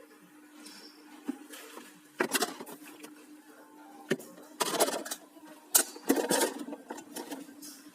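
Intermittent clattering and knocking, several short bursts, over a steady hum.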